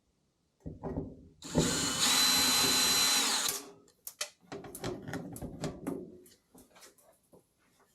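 Power drill-driver running for about two seconds with a high whine that rises slightly and drops as it stops, followed by clattering knocks and handling noises.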